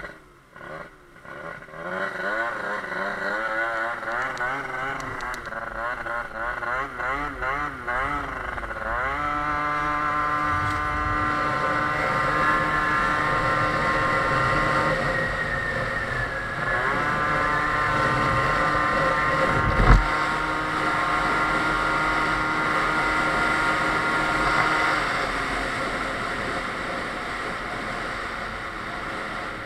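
Two-stroke Sachs Speedjet RS scooter engine, tuned with a Stage6 MK2 cylinder kit, Yasuni R exhaust and 19 mm Motoforce carburettor: revs wavering up and down for the first few seconds, then rising into a steady high-pitched run as the scooter pulls away, with a brief dip near the middle and a single thump about two-thirds through, easing off near the end.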